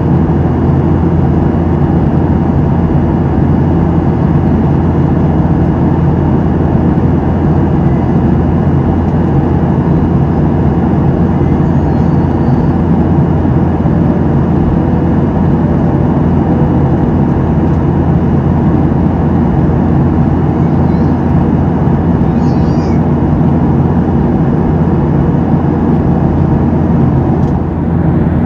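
Cabin noise inside a Boeing 737-700 in flight: a steady drone of the CFM56-7B engines and airflow, with a constant low hum that holds at one level.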